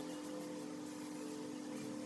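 Quiet background music of sustained, held notes.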